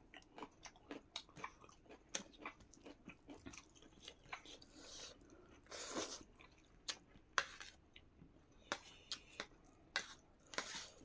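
Quiet chewing and mouth sounds of people eating, with frequent short smacks and clicks and a louder burst about six seconds in.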